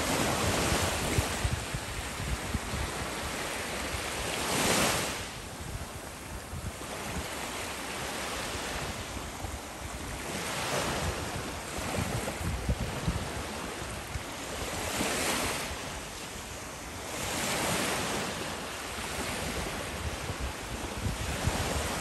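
Small sea waves washing onto the shore, each one swelling and fading away every few seconds.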